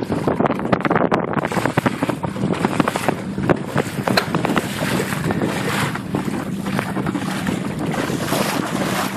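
Wind buffeting the microphone over choppy sea, with water splashing and slapping against a small boat's hull and a steady low hum underneath.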